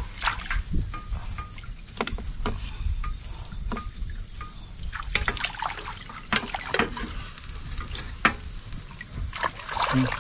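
Steady, loud chorus of insects, crickets or similar, in a high pulsing drone, with scattered light clicks and crackles underneath.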